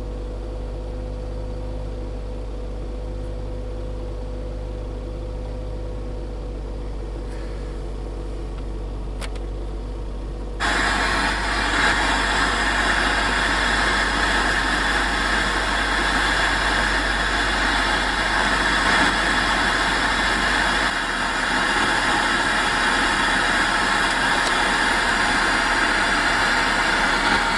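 Car engine idling, heard from inside the cabin. About ten seconds in, a louder steady rushing noise comes on suddenly and keeps going.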